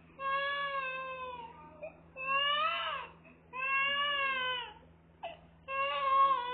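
A toddler crying in four drawn-out wails, each about a second long, with short breaks between them.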